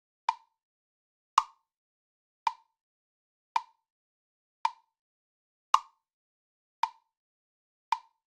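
Sharp, identical clicks evenly spaced a little over a second apart, like a metronome, with silence between them.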